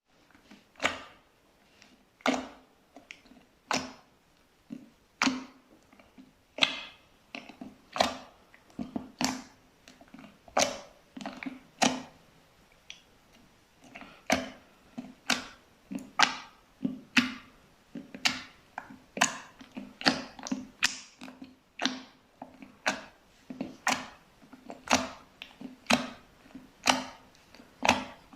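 Slime filled with small white pearl beads being squeezed and pressed by hand, each press a short crackly squish. The squishes come about every second and a half at first, then more often later on.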